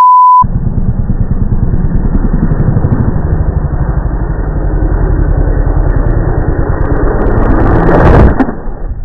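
A brief steady test-tone beep, then a dirt bike's engine running loud and growing louder as the bike comes close, ending about eight seconds in with a sudden crash as the sound drops away.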